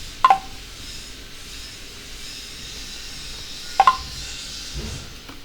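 Two short, sharp clicks with a brief ring, about three and a half seconds apart, over a faint steady hiss.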